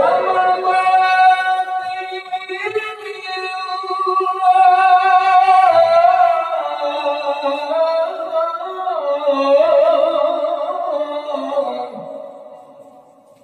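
A male qari reciting the Quran in melodic tilawah style through a microphone and loudspeakers: long held, ornamented high notes stepping up and down in pitch. The phrase ends and dies away near the end.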